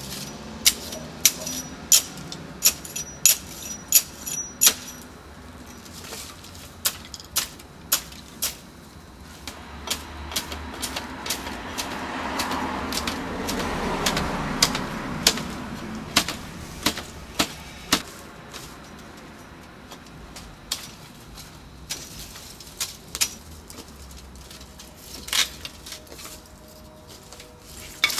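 Sharp clinks and taps of broken glass shards, in a quick run of strikes about twice a second for the first few seconds, then scattered. A broad rushing noise swells and fades midway.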